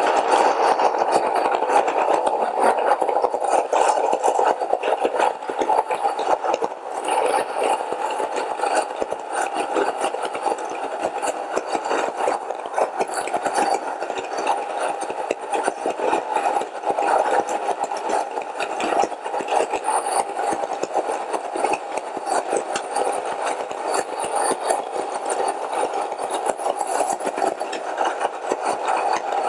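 Komo Fidibus Classic electric stone grain mill running, its corundum-ceramic stones grinding dried corn kernels into meal: a steady motor hum with dense crackling of kernels being cracked between the stones.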